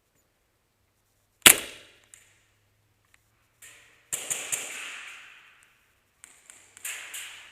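Airsoft gunfire: a single loud shot about 1.5 seconds in, a quick burst of three around four seconds, and several more shots near the end, each with a short ringing tail.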